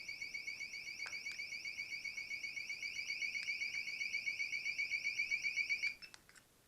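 Wireless home alarm's built-in siren sounding a high-pitched, rapidly warbling electronic wail. The PIR motion sensor has been set off by a small dog running past. It grows louder, then cuts off abruptly about six seconds in when the alarm is switched off.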